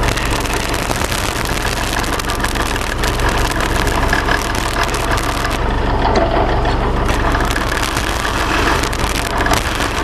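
Drill press running with a step drill bit cutting and scraping into thin sheet metal to deburr the back side of a drilled hole, over the steady hum of the press motor. The scraping comes in two bouts: the first lasts about five seconds, the second runs from about seven seconds to near the end.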